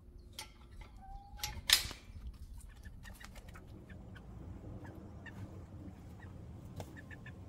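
A sharp metal click, the loudest sound, comes from the run door's latch a couple of seconds in, just after a short squeak. A brown hen then clucks softly in short, scattered notes.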